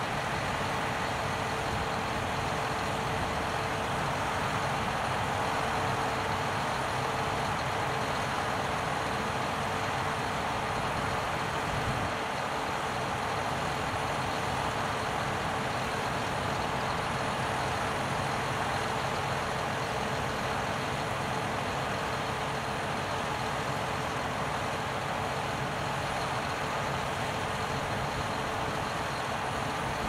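Claas Lexion 760 tracked combine harvester cutting and threshing wheat, its engine and machinery running in a steady drone.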